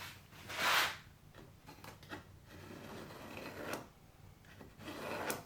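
Pen scratching along the edge of a wooden board while tracing an outline, in two short strokes: one about half a second in and one near the end, with a few light knocks between.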